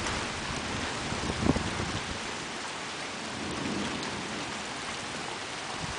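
Steady rain falling during a thunderstorm, with a brief low thump about a second and a half in and a soft low rumble of thunder near the middle.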